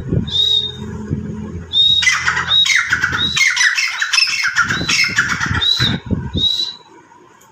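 Birds squawking and calling: repeated short harsh calls, each sliding quickly down in pitch, overlapping into a busy burst of calls in the middle and thinning out near the end. Low thuds sound underneath.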